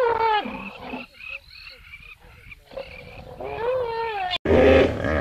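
White rhinoceros calf giving high, whining squeals: one about a second long at the start that rises and falls, a second shorter one near four seconds, with short faint chirps between. A little after four seconds a loud, rough, deep noise starts abruptly.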